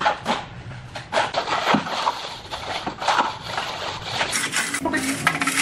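Hands and a trowel scraping and spreading sand across a floor, a run of short, irregular rough strokes. A steady low hum comes in near the end.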